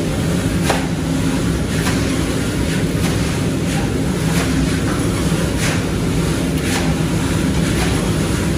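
Dry black chickpeas rattling and rushing as they are churned and tossed with an iron scoop in a large iron kadhai, with a sharp scrape of the scoop against the pan about once a second. A steady low hum runs underneath.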